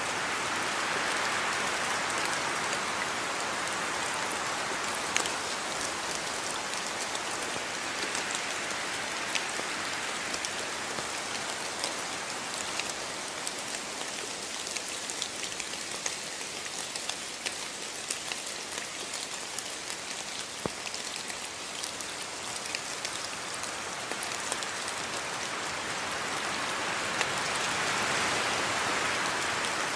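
Steady rain falling, a dense even hiss sprinkled with many sharp drop ticks. It swells slightly near the start and again near the end, easing a little in between.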